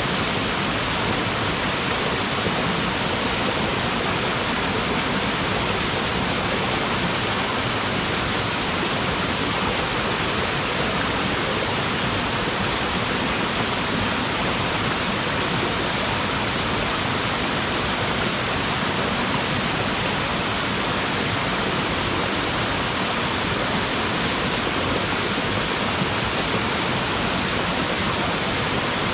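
Small waterfall pouring steadily into its pool: an even, unbroken rush of falling water.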